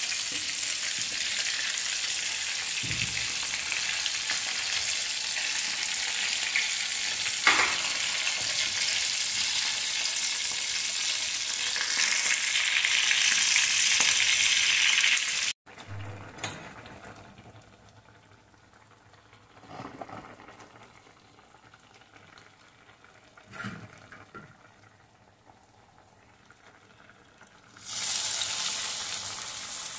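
Fish pieces frying in oil in a pan: a steady, loud sizzle. It cuts off sharply about halfway, leaving quiet with a few faint knocks, and then sizzles strongly again near the end.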